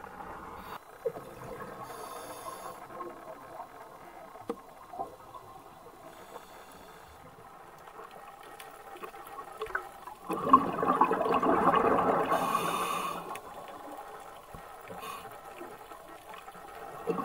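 Underwater sound: a faint bed of water noise with scattered clicks, then a louder stretch of bubbling water about ten seconds in that lasts about three seconds.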